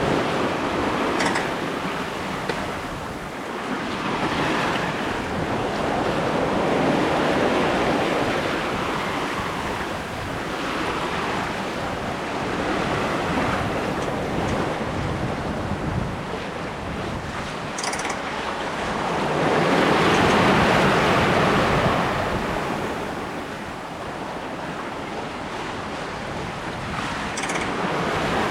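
Lake water rushing and splashing along the hull of a sailboat under sail, swelling and easing in waves every few seconds, with wind buffeting the microphone.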